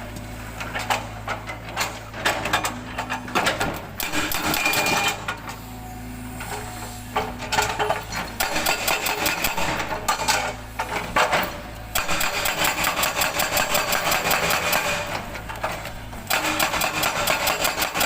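Hydraulic breaker hammer on a Cat 320 GC excavator pounding granodiorite rock in rapid, even blows, over the steady hum of the excavator's diesel engine. The hammering eases off twice for a moment, then resumes.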